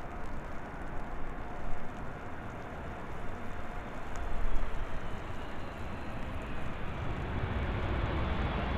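Boeing 747-8 Freighter's four GEnx turbofans running through the flare and touchdown on a wet runway, a steady jet rumble with a faint falling whine. The low rumble grows louder over the last couple of seconds as reverse thrust builds.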